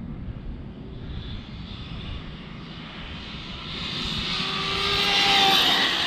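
RC car's 1717 1650kv brushless motor and drivetrain whining at speed, growing steadily louder as the car comes toward and past the microphone. The pitch dips near the end as it passes.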